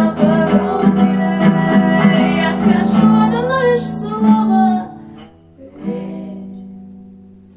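Song played on acoustic guitar with a singing voice, breaking off about five seconds in. A last guitar chord follows a second later and rings out, fading away.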